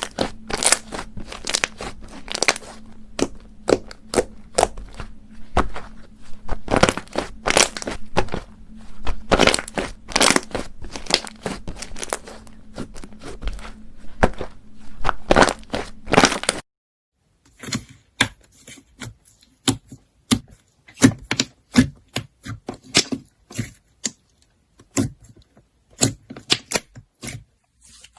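Slime being squeezed, pressed and stretched by hand, giving quick irregular crackles and pops of trapped air. About halfway through the sound cuts out briefly, then the popping goes on quieter and sparser.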